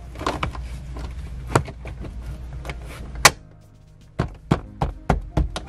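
Plastic A-pillar trim in a car's cabin being handled and pressed against the pillar: a run of clicks and knocks, the loudest a sharp snap about three seconds in, over a low hum.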